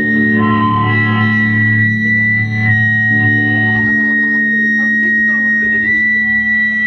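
Distorted electric guitars ringing out through amplifiers with no drums, over a steady high whine of amplifier feedback. A low held note drops out about four seconds in.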